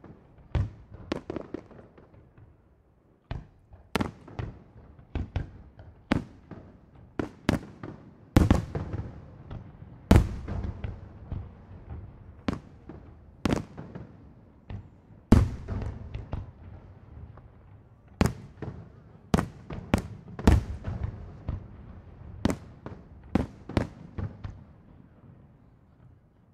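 Aerial fireworks shells bursting in an irregular string of loud bangs, about one or two a second, each trailing off in an echo, with a short lull about two seconds in.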